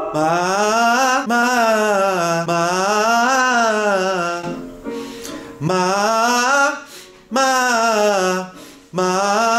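Man's voice singing vocal warm-up exercises: phrases that glide up and then back down in pitch, broken by short pauses for breath.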